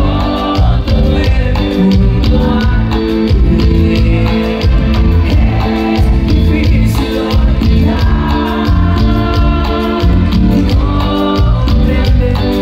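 Live grupera band music: a male lead singer over drums, bass and keyboards, with a steady beat.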